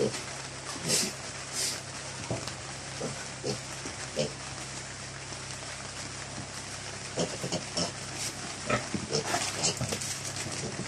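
Piglets grunting and giving short squeals as they are grabbed and one is lifted out of the pen, the calls coming more often toward the end. A steady low hum runs underneath.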